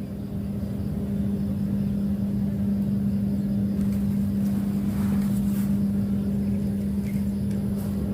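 An engine running at a constant speed, a steady low hum that does not change.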